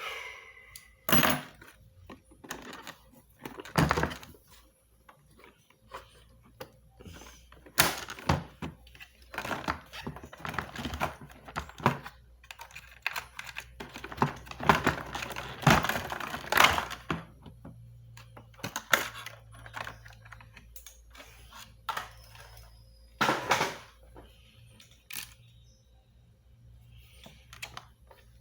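Irregular clicks, knocks and rattles of hard parts and tools being handled while a vacuum cleaner is taken apart, with a few louder thunks spread through.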